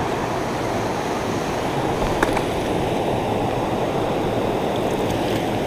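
Creek water rushing steadily over shallow rapids.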